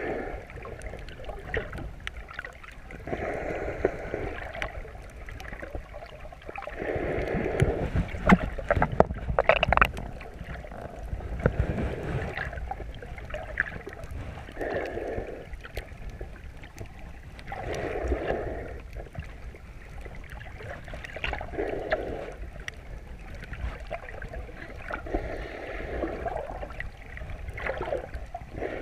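Muffled sloshing and gurgling water around a chest-mounted GoPro underwater, swelling in regular surges about every three and a half seconds, with a few sharp clicks about eight to ten seconds in.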